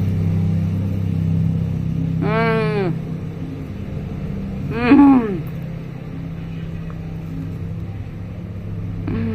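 Low, steady hum of a motor vehicle's engine running nearby, louder for the first few seconds and then fading. Two short pitched sounds that rise and fall stand out over it, about two and a half and five seconds in; the second is louder.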